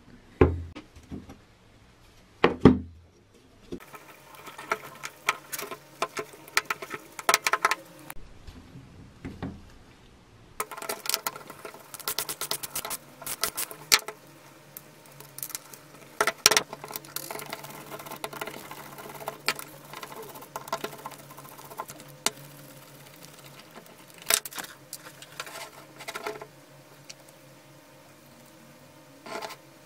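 Hand disassembly of an old electric drill: metal parts and hand tools clicking, clinking and rattling, with a small ratchet wrench clicking as it turns on the gear housing. There are two heavier knocks in the first few seconds.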